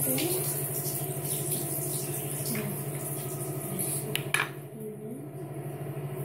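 Toothbrush and toothpaste tube being handled at a bathroom sink: rustling and scraping, then two sharp clicks a little past four seconds in, over a steady low hum.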